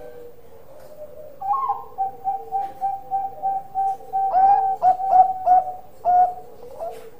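Bangkok-type zebra dove (perkutut) singing its cooing song. It starts about a second and a half in with a run of short coos on one pitch, about three a second, then gives a louder, quicker cluster of notes in the middle and a last coo about six seconds in.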